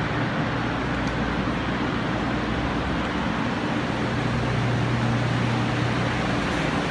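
Several electric drying blowers, air movers or dehumidifiers, running steadily: a rushing of air over a low, even motor hum, with a slight shift in the hum's pitch about four seconds in.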